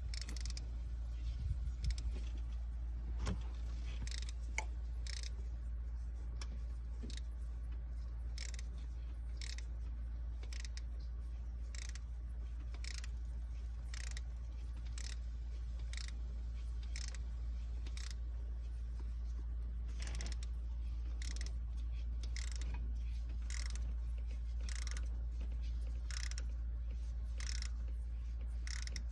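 Sharp metallic clicks, roughly one a second, from hand work on the engine's valvetrain, over a steady low hum.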